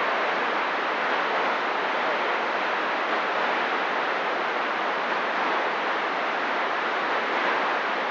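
CB radio receiver hiss: steady static on an open channel while no station is transmitting.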